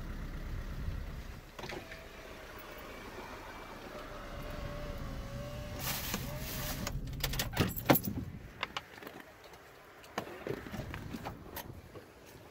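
Car cabin noise with a faint steady whine, then a burst of hiss and a run of sharp clicks with a loud knock about eight seconds in, as a car door is opened and shut. Afterwards it is quieter, with scattered light clicks.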